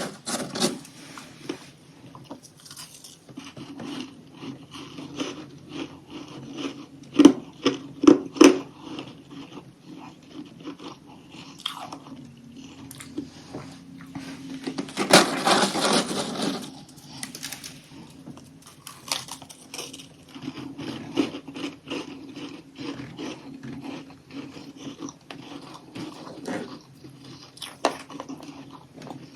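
Close-up biting and chewing of crunchy chunks of humidifier freezer frost: irregular crisp crunches throughout, with a few loud sharp bites about seven to eight seconds in and a dense stretch of crunching around the middle.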